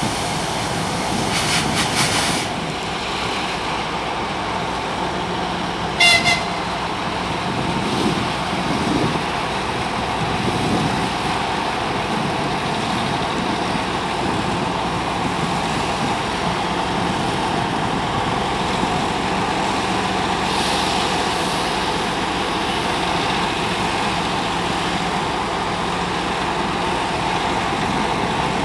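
2M62U diesel locomotives' two-stroke 14D40 engines running steadily as the locomotives move slowly through the station. A short, high horn toot sounds about six seconds in.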